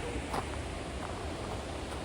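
Steady rushing of river rapids, with a faint sharp click about a third of a second in.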